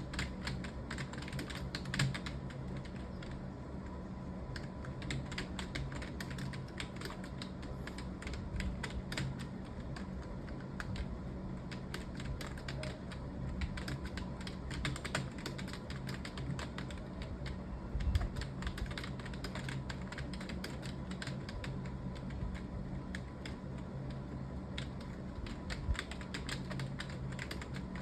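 Fast, continuous typing on a computer keyboard, a dense stream of key clicks with a few heavier knocks now and then. A steady faint hum lies underneath.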